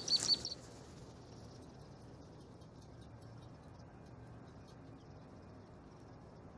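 Quiet open-air background with faint, scattered high-pitched chirps and ticks from birds or insects; a short rapid run of high chirps in the first half-second. No gunshot is heard.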